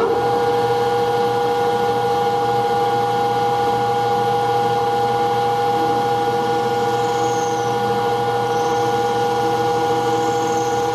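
TRAK 1440 lathe spindle starting up and running steadily with the chuck spinning, giving a steady two-note whine over a low hum.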